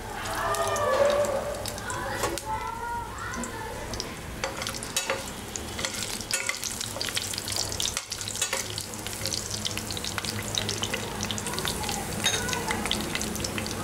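Whole green chillies, dried red chillies and tempering spices (mustard seeds, cumin, fenugreek, fennel) sizzling in hot oil in a steel pan while being stirred, with a steady crackle of many small pops.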